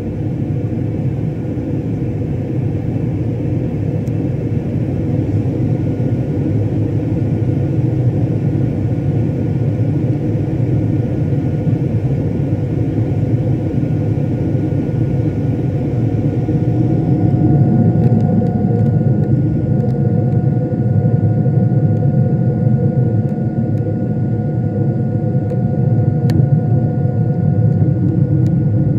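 Boeing 777 airliner cabin noise: a steady, loud rumble of jet engines and airflow with a faint steady whine above it. The higher hiss thins out a little over halfway through.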